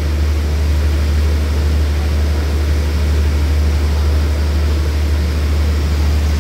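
Diesel engine of a standing passenger train idling: a steady low drone with an even hiss over it.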